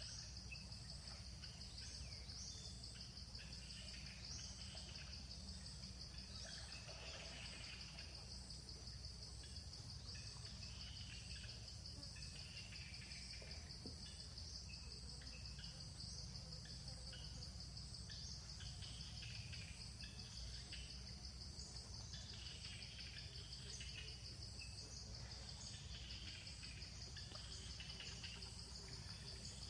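Outdoor ambience: a steady, fast-pulsing insect trill with scattered short bird chirps over a low hum.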